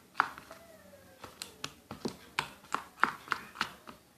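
Spoon stirring a thick slime mixture of white glue and body scrub in a container, clicking against the container in a quick run of sharp taps, about three a second.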